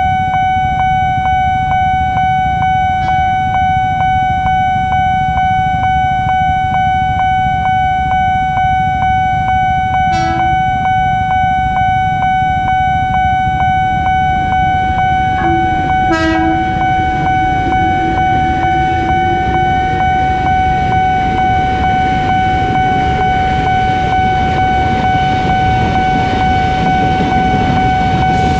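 Level-crossing warning alarm ringing steadily. A KRL Commuter Line electric train sounds two short horn toots, about ten and sixteen seconds in, as it approaches. Its rumble grows as it passes through the crossing near the end.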